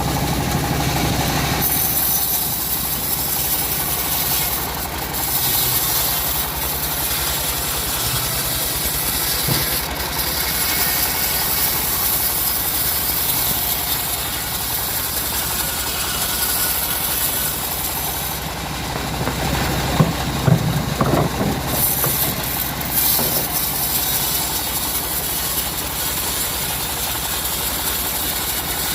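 Sawmill band saw running and cutting through timber: a steady mechanical drone with a hiss that brightens about two seconds in. A few sharp knocks about two-thirds of the way through.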